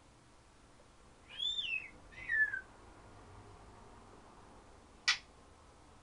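African grey parrot whistling twice: first a whistle that rises and falls, then a shorter whistle that falls. A single sharp click comes near the end.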